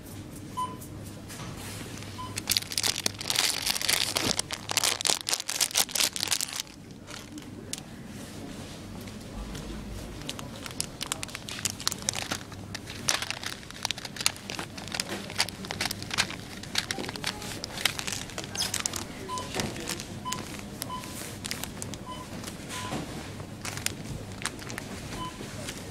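Crinkling and rustling close to the microphone, dense and loud from about two seconds in to six and a half seconds, then coming and going. A few faint short beeps sound in the background.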